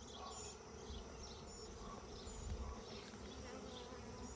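Honeybees buzzing in a faint, steady hum around an opened nuc and hive box.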